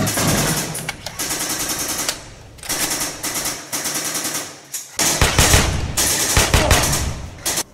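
Bursts of rapid automatic gunfire, broken by short pauses about two and four seconds in. The last burst, from about five seconds in, is heavier and deeper.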